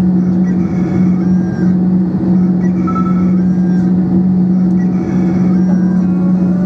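Airbus A321 jet engines at idle heard inside the cabin as the aircraft taxis: a steady, loud hum with a constant low drone.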